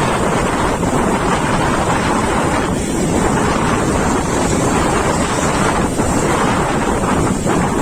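Strong wind buffeting the microphone over the steady wash of large storm waves breaking on the beach.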